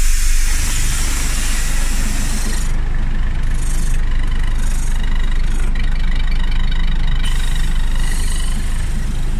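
Scania OmniCity city bus running with a steady low engine rumble. A long hiss of air fills the first few seconds, followed by a faint whine and a few shorter hisses.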